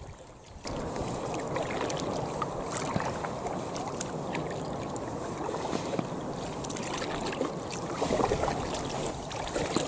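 Water washing and lapping along the hull of a moving Itiwit two-person kayak as it is paddled, with scattered small splashes and knocks. It starts suddenly about half a second in.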